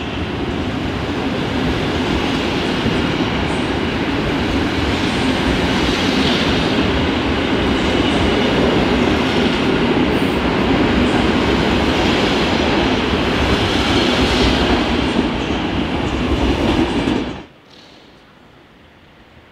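An EP07-hauled Intercity passenger train rolling through the station, a steady loud noise of wheels running on the rails. The noise cuts off suddenly near the end, leaving a much quieter background.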